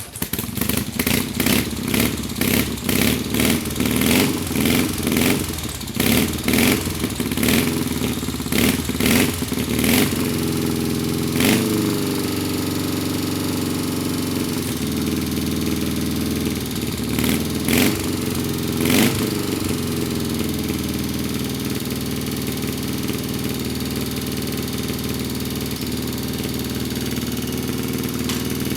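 1976 BMW R60/7's air-cooled flat-twin boxer engine, revved in quick throttle blips with sharp cracks through roughly the first ten seconds. A few more revs follow, and from about twenty seconds in it idles steadily.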